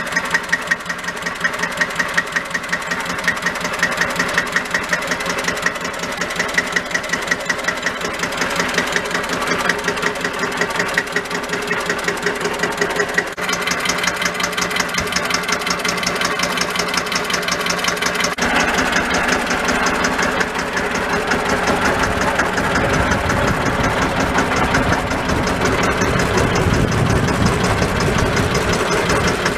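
Single-cylinder air-cooled diesel engine of a 1964 Deutz D15 tractor running with a steady knocking beat at idle. About two-thirds of the way through it runs harder, with a deeper rumble.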